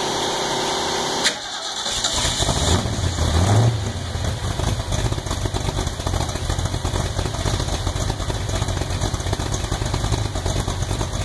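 1972 De Tomaso Pantera's mid-mounted Ford 351 Cleveland V8 starting up. After a click about a second in, the engine catches, revs briefly with a short rise in pitch, then settles into a steady idle.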